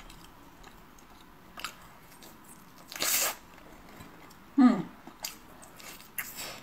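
A person eating sausage: quiet chewing and mouth clicks, a short hissy burst of breath about three seconds in, and a brief vocal sound falling in pitch just before five seconds, the loudest moment.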